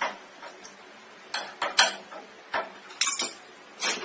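A string of short, irregular clinks and knocks of metal tools and parts being handled, about seven in four seconds.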